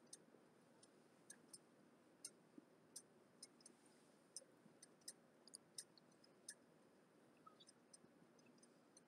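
Near silence broken by faint, sharp, irregular clicks, about two a second.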